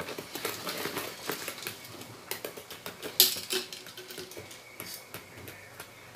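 Chocolate cake batter being beaten by hand in a bowl: a utensil clacking and scraping against the bowl in quick, irregular clicks, with one louder knock about three seconds in.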